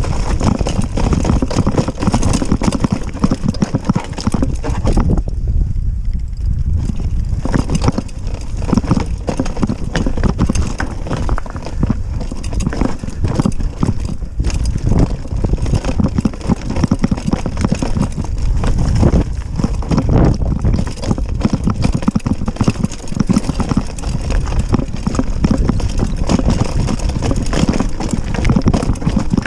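Mountain bike descending a rough downhill trail: a dense, continuous rattling and knocking of the bike over the rough ground, easing briefly about five seconds in.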